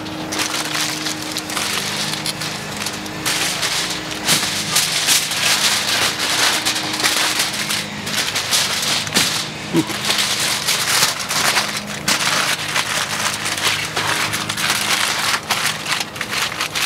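A double layer of aluminium foil crinkling and crumpling continuously as it is folded and pressed by hand around a large smoked pork butt.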